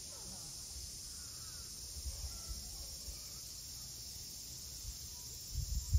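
Steady high-pitched drone of a summer insect chorus, with a few low bumps near the end.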